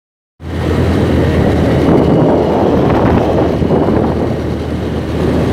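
Motorcycle engine running as it rides along, with heavy wind buffeting the microphone; the sound cuts in suddenly about half a second in, after digital silence.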